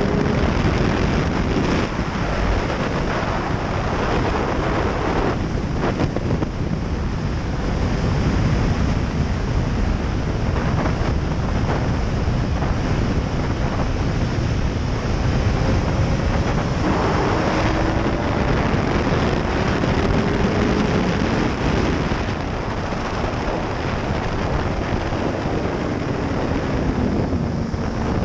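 Heavy wind rush over the microphone at track speed on a BMW S1000RR sportbike, with the bike's inline-four engine running underneath; the engine pitch rises as it pulls through the gears and drops near the end as it slows for a corner.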